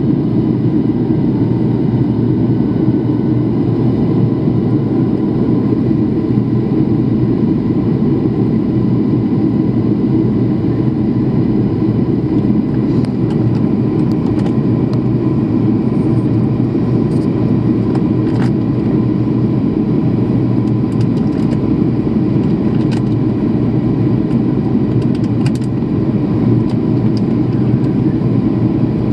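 Steady cabin noise of a jet airliner in flight, a low drone of engines and airflow heard from a window seat, with a faint steady whine above it. A few light ticks come in the second half.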